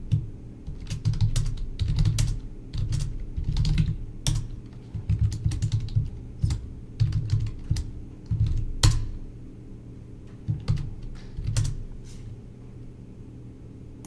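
Typing on a computer keyboard in irregular bursts of keystrokes, with one sharper, louder key press about nine seconds in. The typing stops about two seconds before the end, leaving a steady low hum.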